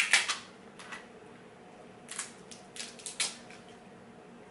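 Snow crab leg shells being cracked and snapped apart by hand: a loud crack at the start, another about a second in, then a quick run of several sharp cracks in the second half.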